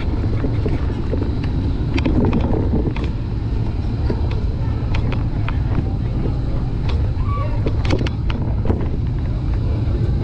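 Steady low rumble of wind buffeting the microphone and tyres rolling as the bicycle moves along, with scattered light clicks and rattles.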